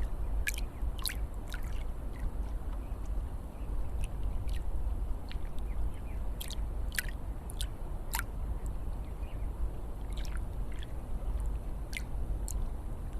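Flowing water: a steady low rush with irregular sharp splashes and drips on top, about a dozen scattered through.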